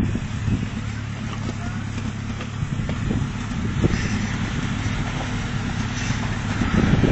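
Suzuki Samurai engine running at low, steady revs as the 4x4 crawls up a rocky slope, with a few light knocks. It gets louder near the end.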